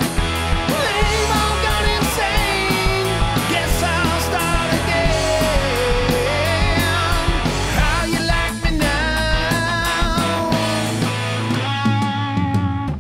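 Rock music with electric guitar, drums and a singing voice.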